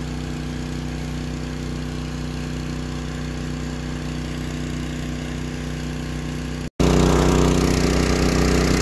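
Small gasoline engine of a water pump running steadily, dewatering a pond. A brief cut about two-thirds of the way in, after which the engine is louder.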